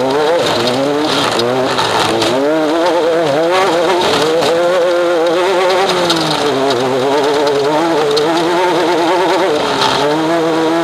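Off-road race vehicle's engine at speed, its pitch wavering quickly up and down as the throttle and wheel speed change over rough ground, with a few brief knocks and rattles.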